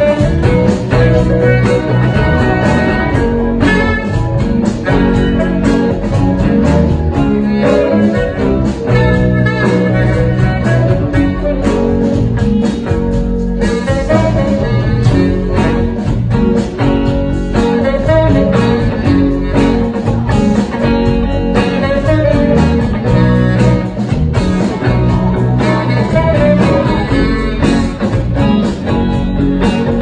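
Live blues band playing: guitars over drums and keyboard, steady and continuous.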